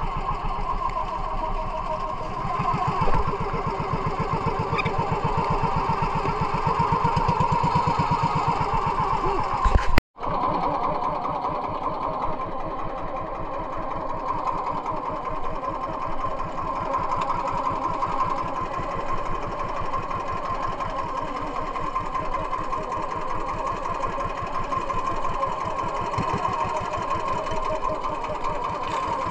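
Small engine of a motorized outrigger fishing boat running steadily under way, with even rapid pulsing. The sound drops out for an instant about ten seconds in, then the engine runs on a little quieter.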